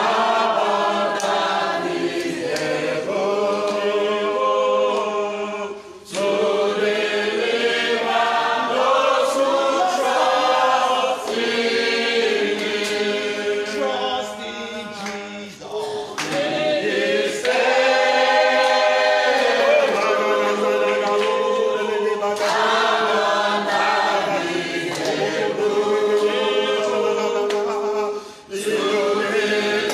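A congregation singing a hymn together in long phrases, with short breaks about six, sixteen and twenty-eight seconds in.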